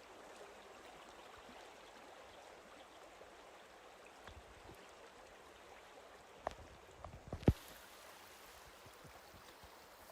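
Flowing river water, a faint steady rush, with a few soft knocks about six and a half to seven and a half seconds in, the last one the loudest.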